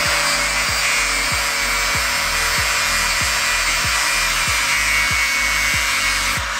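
Electric grinder with a 100-grit abrasive disc running at a steady high whine while a steel spear tip is pressed and rotated against it, a continuous hissing grind of metal on abrasive. Background music with a steady beat, about three beats a second, plays underneath.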